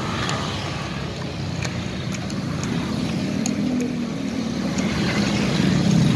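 Road traffic running steadily, a low engine rumble that swells near the end as a vehicle comes closer. A metal spoon scrapes and clinks lightly against a ceramic bowl of rice porridge.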